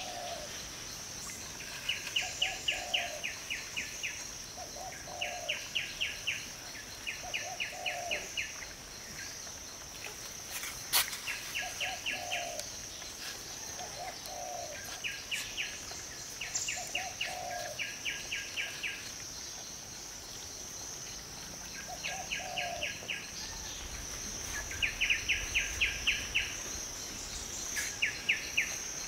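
Outdoor nature ambience: a steady high insect drone, with repeated short trills of rapid chirps about every two seconds and short lower calls between them. One sharp click about a third of the way through.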